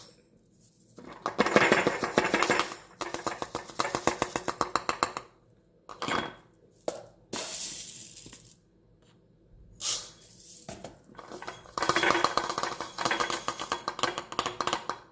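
Fenugreek seeds spooned into small jars, heard as bursts of rapid tiny clicks and rattles as the seeds fall and the spoon knocks against the jar. There are three stretches with short pauses between them.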